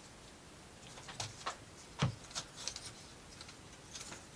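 Light clicks and taps of thin plywood model-kit parts being handled and fitted together, with one louder wooden knock about two seconds in.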